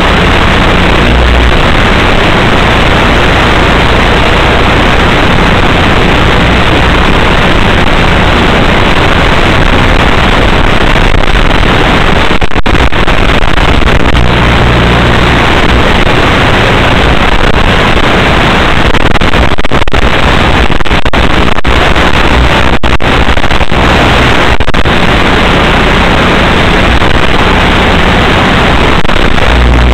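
Loud, steady static hiss from an analog FPV video link's audio channel, with a few brief cut-outs past the middle. The link is weak and breaking up.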